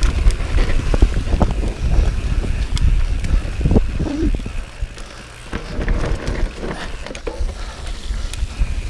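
Mountain bike descending a rough dirt singletrack at speed: knobbly tyres on dirt, with the chain and frame rattling and knocking over bumps, and wind buffeting the microphone. It eases off briefly about five seconds in.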